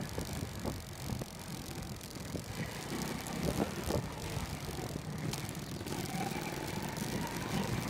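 Travel noise from a moving vehicle on a town street: a steady, uneven low rumble of engine and road noise, with passing traffic and a few short knocks.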